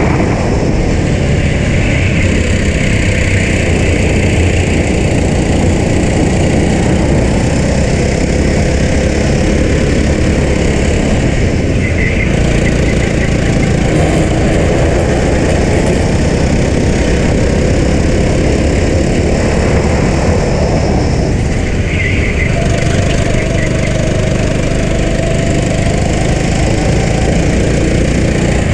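Racing go-kart engine running hard at speed, its pitch slowly rising and falling with the throttle through corners and straights, buried in heavy wind rumble on the kart-mounted camera's microphone.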